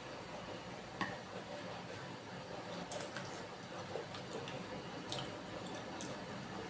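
Soft wet chewing and mouth sounds of someone eating bakso, with a few short sharp clicks about one, three, five and six seconds in.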